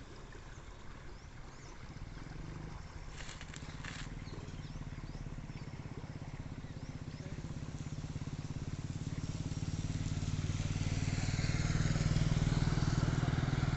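Engine of a moving vehicle running steadily. It grows louder through the second half as road and wind hiss builds, with a few light clicks a few seconds in.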